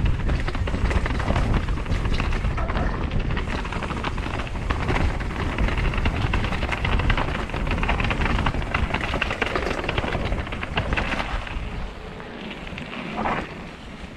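Wind buffeting the microphone and tyres rattling and clattering over rock as a mountain bike descends a rocky trail section. The noise eases about twelve seconds in.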